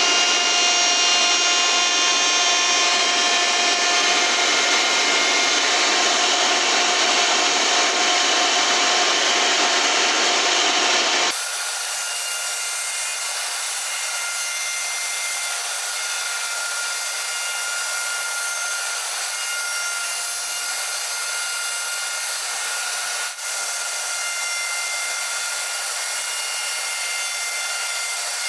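Electric power tool running steadily on wood, a motor whine over a noisy hiss. About eleven seconds in the sound changes abruptly to a quieter, thinner steady whine.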